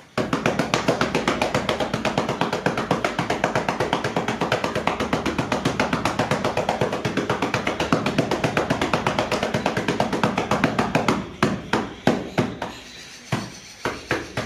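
Rapid, even tapping of a hand patting powder into a perforated filling tray used for making sky-shot fireworks. The taps come several a second, then slow to scattered single taps for the last few seconds.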